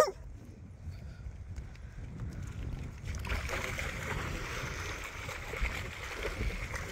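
Dogs splashing through shallow pond water, starting about three seconds in, over a low wind rumble on the microphone.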